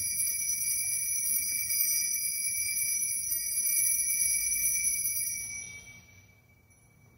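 Altar bells shaken continuously for the elevation of the host at the consecration, a bright metallic jingling. They stop about five and a half seconds in and ring away within half a second.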